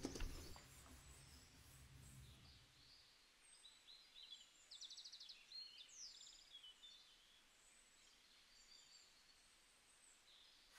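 Near silence: faint background with distant birds chirping, a few quick high trills and a falling call in the middle.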